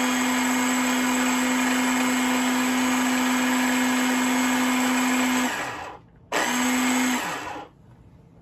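IMUSA mini food processor running at a steady pitch as it blends thick avocado pesto, then switched off about five and a half seconds in and winding down. After a short gap it is pulsed once more for under a second and winds down again.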